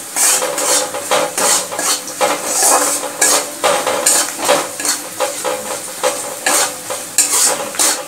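Metal spatula scraping round a metal kadai as garlic and green chillies are stirred while frying in hot oil: rhythmic strokes about two a second over a steady sizzle.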